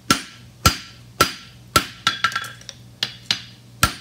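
Hand hammer striking a red-hot 3/8 by 3/4 inch steel bar on an anvil, each blow with a brief ring. The blows come steadily about two a second, with a few lighter taps in between about halfway through. The hammering flattens the toe of a horseshoe.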